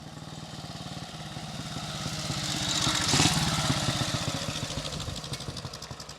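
A 1942 Royal Enfield C.O. army motorcycle's single-cylinder engine running as the bike rides past. It grows louder up to about three seconds in, then fades away.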